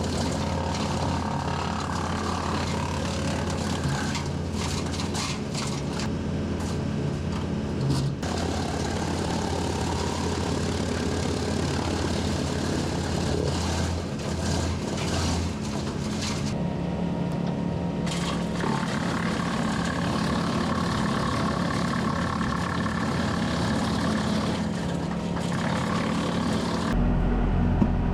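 Tractor engine driving a PTO-powered Woodland Mills TF68 PRO wood chipper at a steady drone, with crackling as limbs are fed through and chipped. The hum drops lower near the end.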